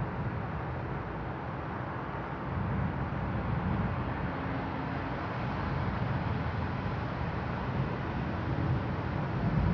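Thunderstorm ambience: a steady wash of storm noise with low rumbles swelling about three seconds in and again near the end, like distant thunder rolling.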